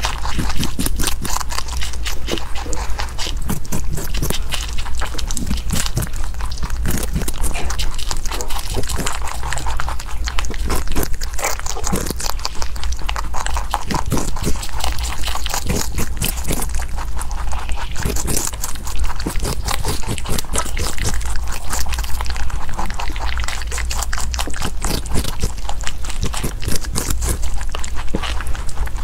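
Close-miked rabbit chewing carrot and fruit: a quick, continuous run of small wet crunching bites and munching.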